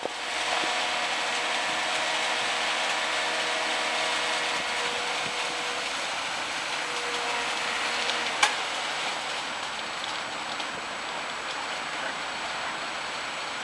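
Construction machinery running: the diesel engines of a concrete mixer truck and a JCB excavator give a steady hum over a whine of several tones, which drops away about eight seconds in. A single sharp click comes just after.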